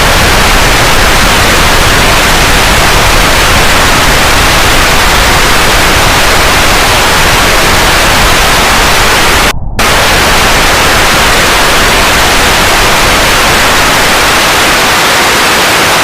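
Loud, steady static hiss of a lost broadcast signal, cutting out for an instant about nine and a half seconds in.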